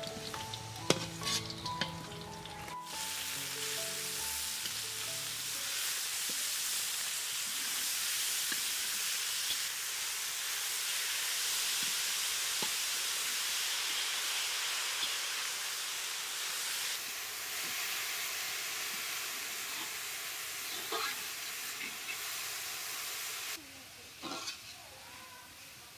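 A few seconds of music, then chopped spinach sizzling in hot oil with garlic and green chillies in a metal kadai. The loud sizzle starts about three seconds in and slowly dies down, with a metal spatula scraping the pan now and then, most near the end.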